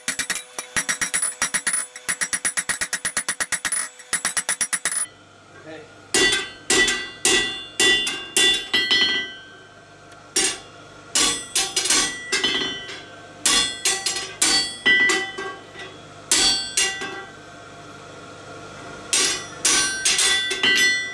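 Hand hammer blows on a red-hot stainless steel bar on an anvil, each strike ringing. A quick run of ringing taps for the first few seconds, then groups of heavier blows with short pauses, and a brief lull shortly before the end.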